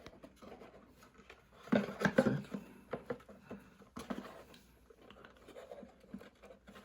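Light scratching, tapping and clicking of hands handling and fitting the parts of a small portable speaker as it is put back together, with a sharper click about four seconds in.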